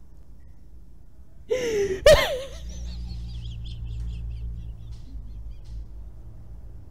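A man bursting into helpless laughter: a loud, shrill whoop about a second and a half in, then high, squeaky, wheezing laughs that trail off.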